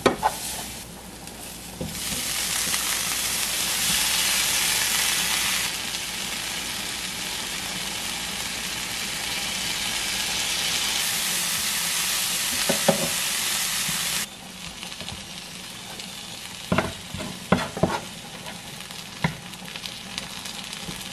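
Garlic and then broccolini sizzling in a nonstick frying pan as they are stirred. The sizzle stops abruptly about two-thirds of the way through, and a few light knocks follow as the vegetables are moved with a wooden spatula.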